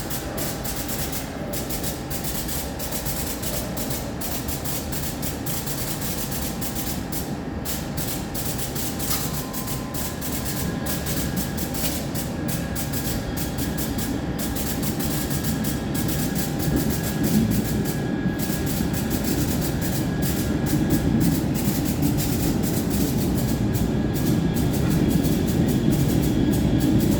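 MBTA Red Line subway train making an unusual noise: a steady low rumble under faint, thin, steady whining tones and rapid irregular clicking, the rumble slowly growing louder.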